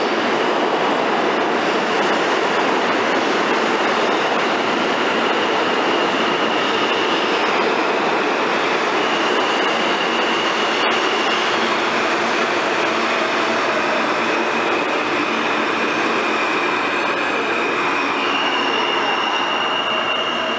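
New York City subway train running on the track: a steady, loud rush of wheel and rail noise, with thin high steel-wheel squeals coming in a few times, mostly around the middle and near the end.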